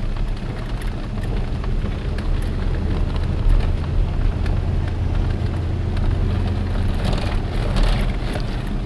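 Vehicle engine running steadily, heard from inside the cab, with the tyres grinding over a loose slate dirt road and scattered small clicks and rattles.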